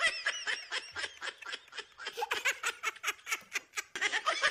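People laughing and giggling in quick, high-pitched pulses.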